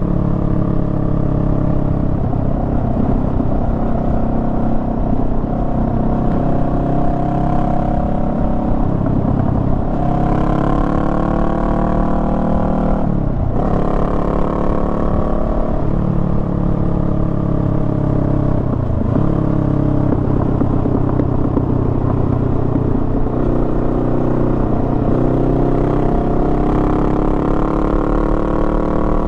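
Honda Rebel 500's parallel-twin engine running under way, heard from the rider's seat. A little past a third of the way through, the pitch climbs and then drops sharply at a gear change. It dips briefly twice more soon after, then runs on steadily.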